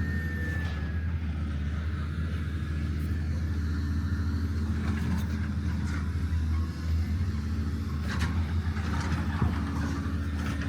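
Motor vehicle engine running steadily, a low even drone throughout.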